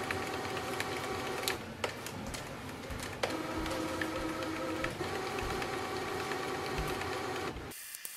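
Canon PIXMA TR150 portable inkjet printer printing its print-head alignment pattern: the carriage and paper-feed motors run with a steady whir and a few clicks. A pitched motor whine joins in for about two seconds midway, and the sound cuts off suddenly near the end.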